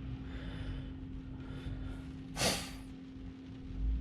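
A short, sharp breath close to the microphone about two and a half seconds in, over a steady low hum.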